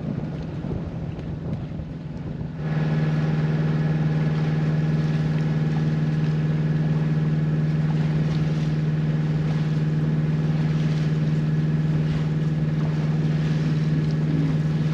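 Wind and water noise, then from about two and a half seconds in a sailboat's inboard engine running at a steady speed under way, an even hum.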